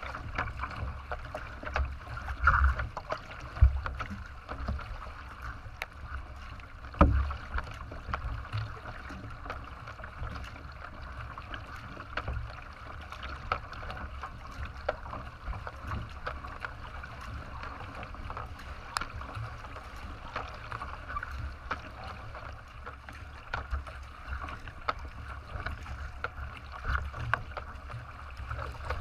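Water rushing and splashing at the bow of a racing kayak being paddled, over a low rumble of wind on the microphone. A few sharp knocks stand out, the loudest about seven seconds in.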